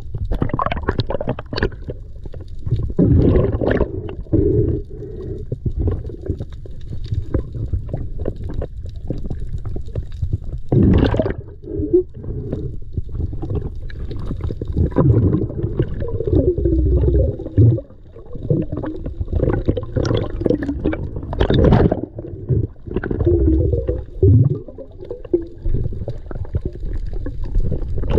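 Muffled underwater rumbling and gurgling of water and bubbles moving around a submerged camera while a spearfisher fights a speared king mackerel on the line, with a few sharper, louder rushes of water.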